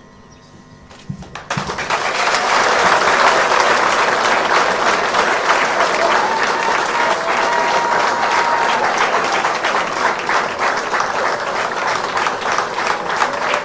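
Large crowd applauding, breaking out suddenly about a second and a half in and going on steadily as a dense mass of clapping.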